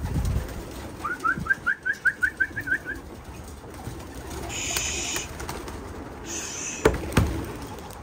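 Homing pigeons cooing at a rooftop loft. About a second in there is a quick run of about ten short rising chirps, and near the end two sharp knocks.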